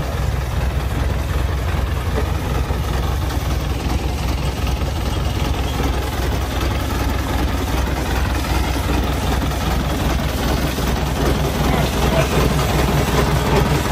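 Heavy mining machinery engine running steadily with a low, even drone.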